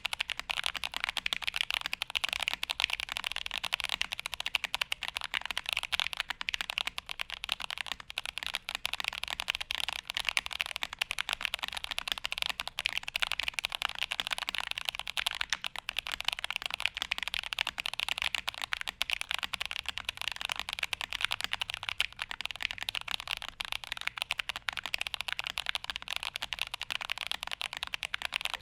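Continuous fast typing on a modded Gamakay K77 mechanical keyboard with tactile Holy Boba switches on an acrylic plate: a dense, unbroken stream of keystroke clacks.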